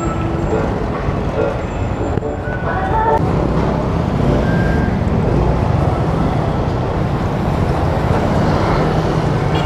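Motorcycle pulling away and riding in street traffic: a steady engine and wind rumble, with the sound of passing traffic.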